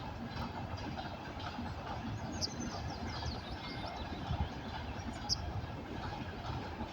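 TEP70 diesel locomotive and its train rolling slowly past with a steady low rumble, with a few brief high squeaks about two and a half seconds in and again near five seconds.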